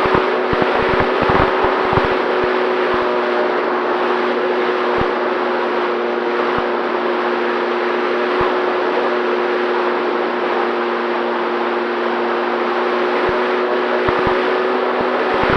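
Electric motor and propeller of an FX-79 flying wing, running at a steady pitch as heard from the onboard camera, with wind rushing over the microphone. Gusty low buffeting comes in near the start and near the end.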